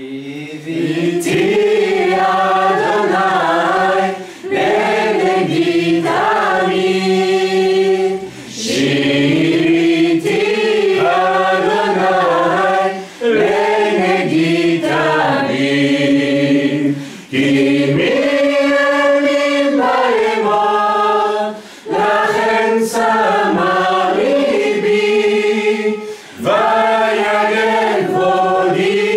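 Group of voices singing a worship song together in phrases a few seconds long, each followed by a brief breath pause.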